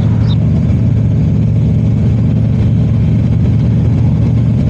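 Harley-Davidson V-twin motorcycle engine running steadily at an even pitch.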